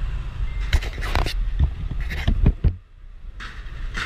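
Motor scooter rolling slowly, heard from the rider's camera: a low rumble with a string of knocks and bumps in the first few seconds, then a sudden short drop-out before the rumble returns.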